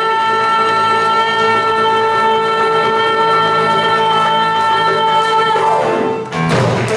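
Jazz-pop ensemble holding a long final chord of the song, which cuts off about six seconds in; applause starts just before the end.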